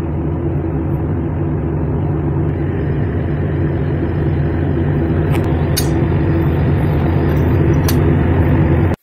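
A machine or engine running steadily, a loud, even low drone with a hum in it, which cuts off suddenly at the end. A few faint light clicks sound over it in the second half.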